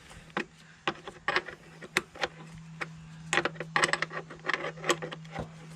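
Wrench clicking and clinking as it turns the long battery hold-down bolt loose, a string of irregular sharp metal clicks. A steady low hum comes in about two seconds in.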